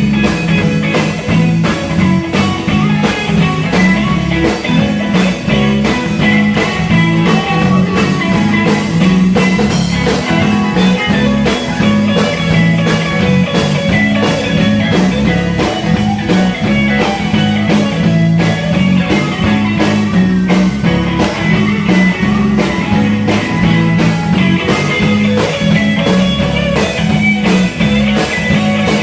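Live gospel band playing an instrumental passage: electric guitar over bass and a drum kit keeping a steady beat.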